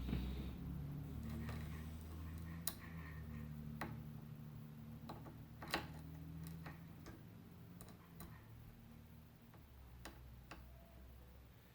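Small sharp clicks and taps of a screwdriver and tiny screws against the motherboard's metal M.2 heat-sink plate, about six of them at irregular moments, over a low hum that slowly fades.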